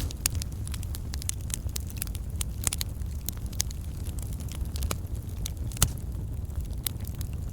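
Wood campfire burning: logs crackling with many sharp, irregular pops over a steady low rumble of the flames, with one louder pop about three-quarters of the way through.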